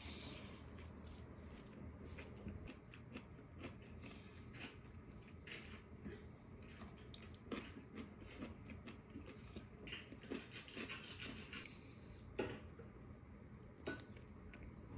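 A person chewing food close up, with faint scattered smacks and small clicks.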